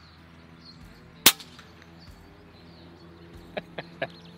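A single shot from an FX Panthera precharged air rifle: one sharp crack about a second in.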